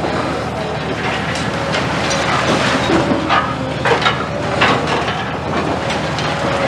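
Hydraulic demolition excavator's diesel engine running steadily while its demolition tongs break up concrete and masonry, with an irregular run of knocks, crunches and clattering debris.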